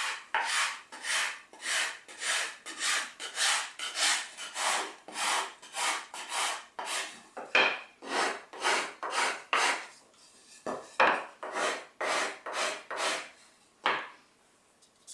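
Sanding block rubbed back and forth over the flat face of a wooden board, in steady strokes about two a second. The strokes stop briefly about ten seconds in, then a few more follow.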